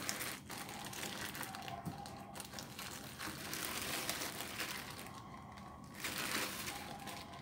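Clear plastic film crinkling and rustling as the foam air filter is pulled out of its plastic bags by hand, easing off briefly about five seconds in.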